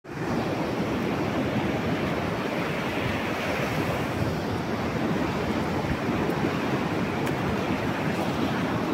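High waves breaking and washing up a sandy beach in a steady rush of surf, with wind buffeting the microphone.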